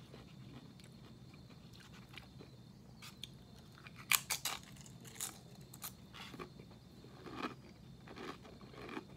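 A tortilla chip with salsa bitten and chewed: a sharp crunch about four seconds in, then irregular crunches every half second or so.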